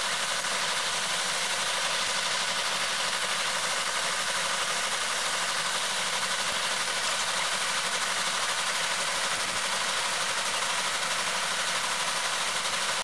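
Metal lathe running steadily in a machine shop: an even mechanical whir and hiss that holds one level throughout.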